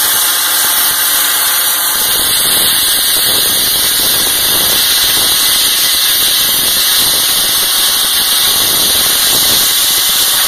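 Wet slurry-blasting rig running: a loud, steady hiss of air and slurry jetting, with engine noise underneath. It turns rougher and crackly from about two seconds in.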